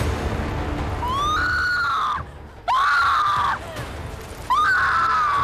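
A person screaming three times in long, high-pitched cries, each rising, held and falling away, the last the longest. A low rumble runs underneath.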